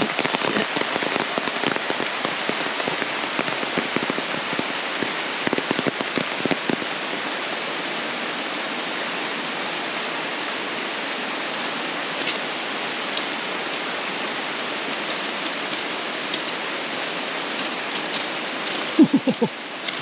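Heavy rain pouring down in a steady hiss, with drops pattering close by on an umbrella overhead. The pattering is busier over the first several seconds.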